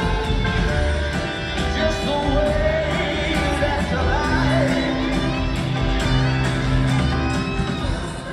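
A live rock band playing loud, with sung lead vocals over bass guitar and drums, and a crowd shouting along.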